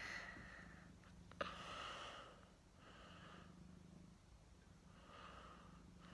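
Faint breathing close to the microphone, a few soft breaths a second or so apart, with a small click about one and a half seconds in; otherwise near silence.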